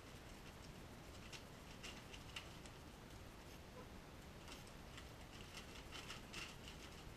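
Faint light scratching and ticking of puppies' paws and claws moving over newspaper, in two short spells.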